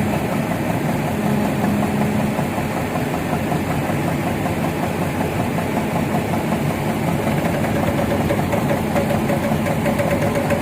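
Excavator's diesel engine running steadily with a dense rattle as the machine works to lift the barge. A faint steady whine joins in during the last few seconds.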